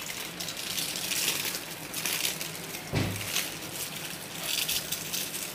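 Butter paper rustling and crinkling as hands roll it tightly around a filled roti roll, with a soft thump about three seconds in.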